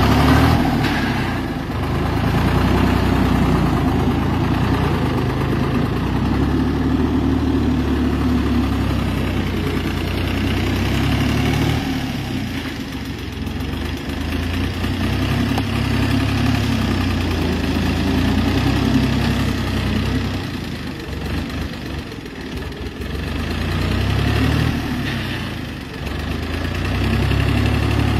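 Champ MS4340 4×4 tractor's diesel engine running as it is driven about, its pitch rising and falling with the throttle. It grows fainter about halfway through as the tractor moves off, and louder again near the end as it comes back.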